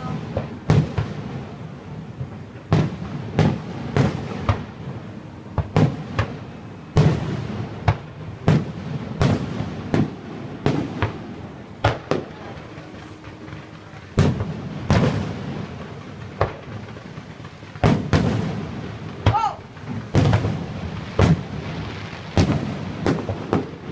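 Fireworks display: a steady, irregular run of booms and bangs from bursting shells, about one or two a second, each echoing briefly.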